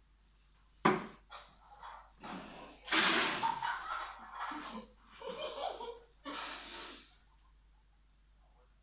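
Stifled laughter from someone holding a mouthful of water: a sudden puff of breath about a second in, then a run of noisy breaths through the nose and lips and muffled giggles, loudest around three seconds in, stopping about seven seconds in.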